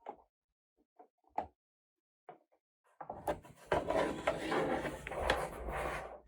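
Toy pieces and packaging being handled: a few light clicks and taps, then from about three seconds in a stretch of continuous rustling and scraping.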